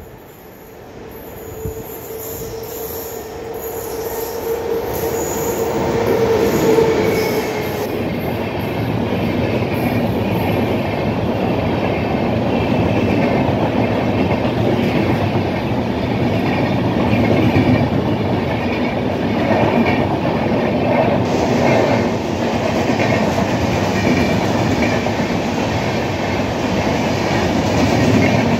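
An electric-hauled express train of LHB coaches approaching and passing at speed close by. The sound builds over the first several seconds with a steady tone, then becomes a loud continuous rumble of wheels on rail with a regular beat as the coaches stream past.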